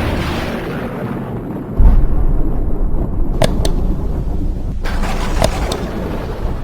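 A deep thunder-like boom about two seconds in, rising out of a continuous rumble, with a few sharp cracks later on. It is typical of the dramatic sound effects used in a horror intro.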